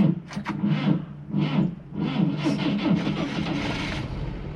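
Moskvich-412's four-cylinder engine being cranked by its starter motor, with an uneven whirring grind that the owner puts down to worn starter bushings; the engine catches and settles into a steady low running sound near the end.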